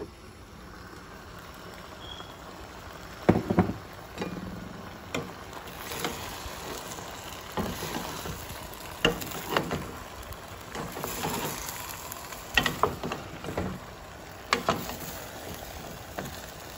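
Chicken strips, tomato and onion simmering in a pan with a steady sizzle, while a spoon stirs in sliced jalapeños, knocking and scraping against the pan every second or two.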